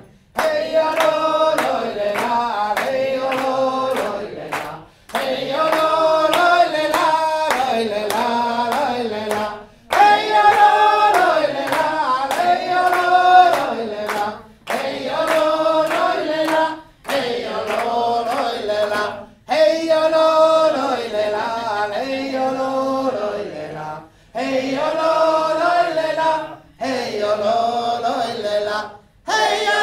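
A group of men and women joiking in unison behind a male leader, repeating one short Sámi joik phrase over and over, with hand claps keeping the beat. The singing breaks off briefly for breath every few seconds.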